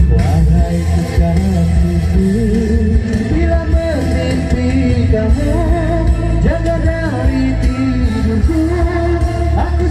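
Live pop singing into microphones over a loud backing track with heavy bass, amplified through a stage sound system. The sung melody wavers and holds notes throughout.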